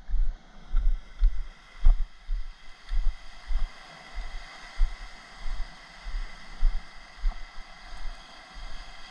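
Footsteps on rough rock, heard as dull low thumps about twice a second as the body-worn camera jolts with each step, over a steady hiss of surf and wind.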